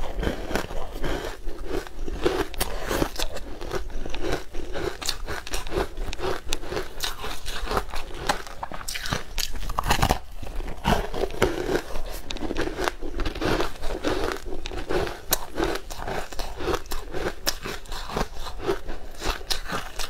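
Close-miked biting and chewing of a crumbly green powder-coated block: a dense run of crunching and crackling, with a louder bite about ten seconds in.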